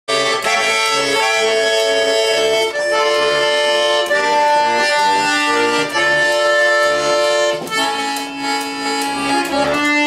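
Accordion playing an instrumental introduction: sustained melody notes over a steady rhythmic bass-and-chord accompaniment.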